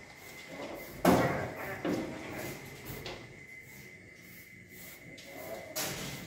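Metal wire cages rattling and knocking as civets move about inside them: a sudden clatter about a second in, then a few smaller knocks. A faint steady high whine runs underneath.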